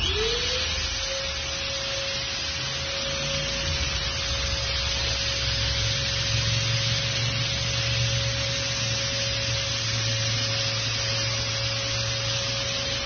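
Handheld electric sprayer switching on: its motor spins up in a quick rising whine, then runs steadily with a constant hiss of spray and a low hum.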